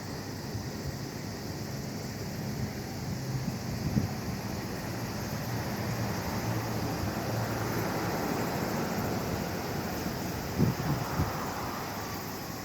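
Strong wind buffeting the microphone: a steady rushing noise, with a few short low gusts near the end.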